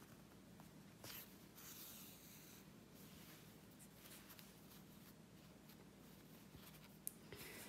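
Near silence with a few faint, soft swishes of embroidery floss being drawn through a knitted doll head, over a low steady hum.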